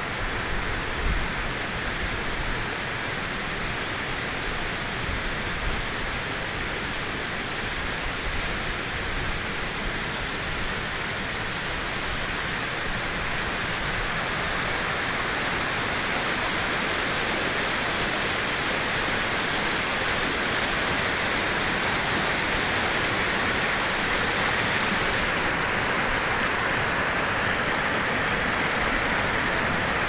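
Waterfall swollen with spring runoff cascading down a rock face: a steady rush of water that grows a little louder partway through, with a few faint low thumps on the microphone.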